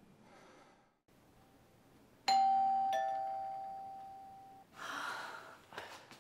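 Two-tone doorbell chime, a ding-dong: two strikes a little over half a second apart, ringing out for about two seconds and then cut off suddenly, followed by a brief noise.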